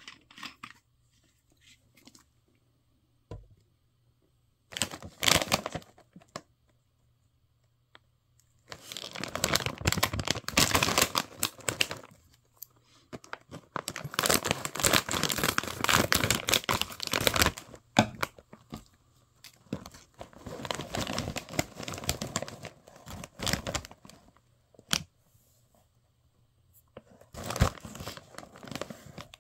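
Foil-lined plastic snack bag crinkling and tearing open in several long bouts of rustling, with short quiet pauses between them. Near the end a hand rustles among the puffed snacks inside the bag.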